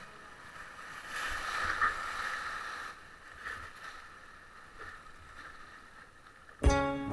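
Whitewater rushing around a kayak running a river rapid, with paddle splashes; the water gets louder for a couple of seconds about a second in, then quietens. Near the end, guitar music starts suddenly.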